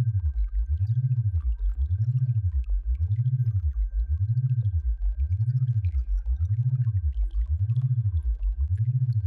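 Synthesized sound-therapy tone: a low hum gliding up and down in pitch about once a second, in an even, repeating wobble, with a faint steady high tone behind it.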